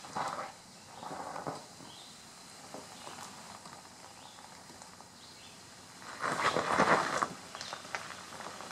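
Loose rock and gravel crunching in short bursts: two brief ones in the first second and a half, and a louder one lasting about a second near the end, over low outdoor background noise.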